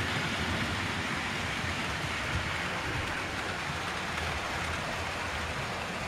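Several model freight trains running at once on the layout's tracks, giving a steady rolling rumble and hiss of wheels on rail and small motors.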